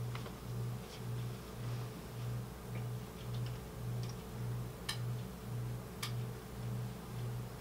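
A low hum swells and fades about twice a second throughout, under a faint steady tone. Two sharp clicks about five and six seconds in are front-panel buttons being pressed on a Tektronix MDO3104 oscilloscope.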